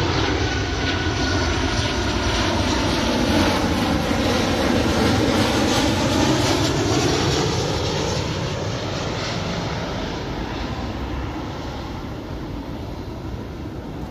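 Boeing 737-900ER's CFM56-7B jet engines passing low overhead on final approach. The steady jet rumble and whine swell to their loudest a few seconds in, sweep in tone as the airliner goes over, then slowly fade.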